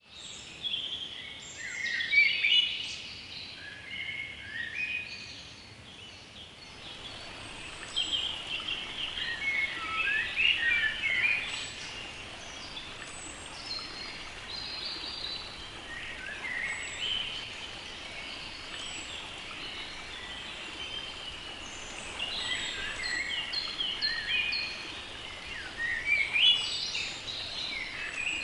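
Several songbirds singing, short chirping and warbling phrases overlapping one another throughout. Underneath, a faint steady rush of flowing stream water comes in after about seven seconds.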